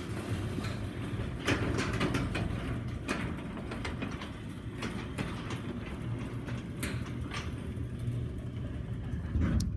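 Garage door opener running and moving the door: a steady low mechanical rumble with scattered clicks and rattles.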